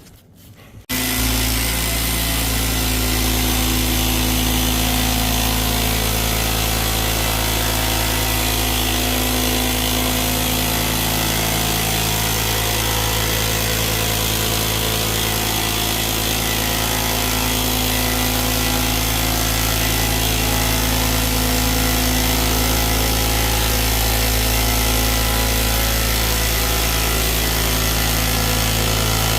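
Carpet-cleaning machine motor switching on about a second in and running steadily and loudly, a constant low hum under a strong hiss.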